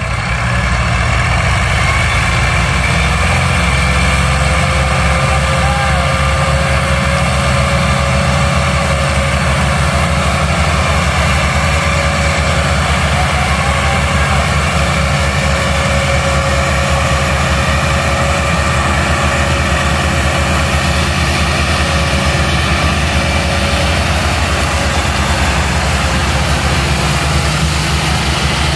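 Diesel tractor engines running steadily under heavy load, hauling a trolley piled high with sugarcane. The painted lead tractor puffs black exhaust smoke.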